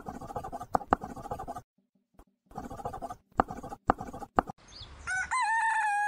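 Marker scratching across a drawing board in short strokes with sharp clicks. About five seconds in, a rooster crows: one long, loud call.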